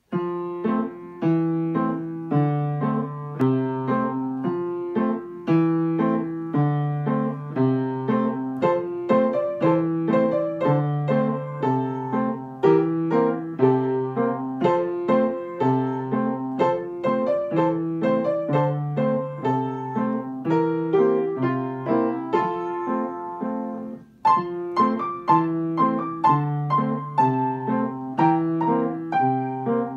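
Upright piano played four hands: a duet arrangement of a folk tune in an even, steady rhythm, the playing starting right at the outset and breaking off for a moment about three-quarters of the way through before going on.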